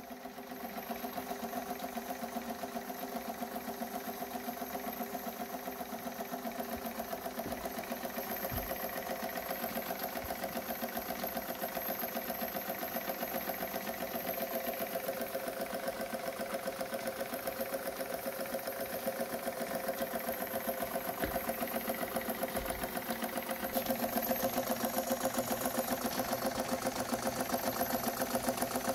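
1952 Jensen 50 toy steam engine running steadily, its small cylinder and flywheel mechanism clattering in a fast, even beat. It gets louder about three-quarters of the way in.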